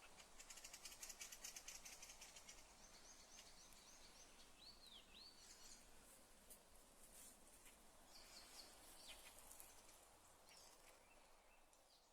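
Nightingale singing faintly: a fast rattling run of high notes, then a series of short notes and two swooping whistles, with more short phrases later, over a faint background hiss of the forest.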